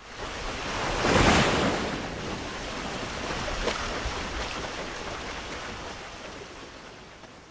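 A rushing, wind-like noise effect that swells about a second in and then slowly dies away, with a few faint clicks partway through.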